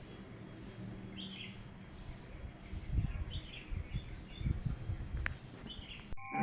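Faint outdoor background with a few short bird chirps, scattered low thumps and a faint steady high whine.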